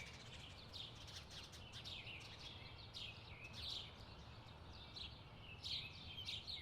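Faint birds chirping outdoors: many short, quick chirps repeating irregularly, a little busier near the end, over a low steady background rumble.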